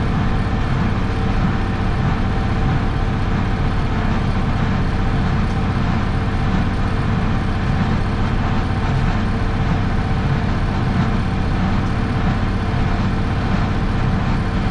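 Diesel tractor engine running steadily at raised revs, driving a square hay baler through the PTO.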